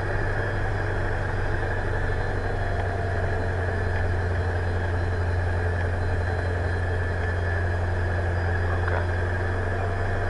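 Diamond DA40's four-cylinder piston engine and propeller running steadily at takeoff power during the takeoff roll, heard inside the cabin as an even, low drone.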